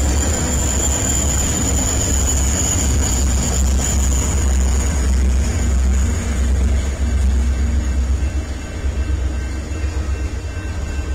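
Rocky Mountaineer passenger train passing at track level: a heavy diesel rumble as its last locomotive goes by eases after about seven seconds into the rolling clatter of the passenger cars. A thin high whine is heard over it for the first five seconds.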